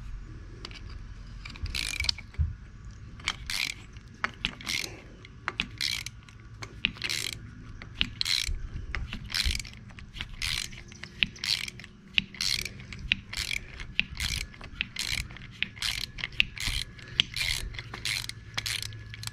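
Ratchet wrench clicking in repeated strokes as a very tight nut is worked off. The strokes come about once a second at first and then quicken, each a short burst of clicks.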